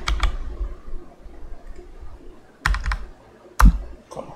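Typing on a computer keyboard: a few quick keystrokes at the start, a short burst of keys a little before three seconds in, then a single key about a second later, with quiet pauses between.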